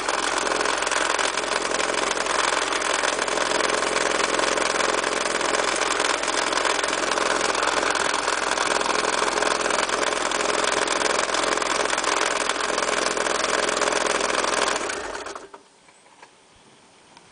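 Honda H22A8 2.2-litre four-cylinder engine idling steadily with a knocking noise, caused by a failing automatic belt tensioner. About 15 seconds in the engine is switched off and dies away, leaving a few faint ticks.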